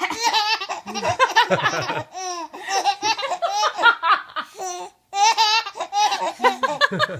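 High-pitched laughter in three long bouts, broken by short pauses about two seconds and five seconds in.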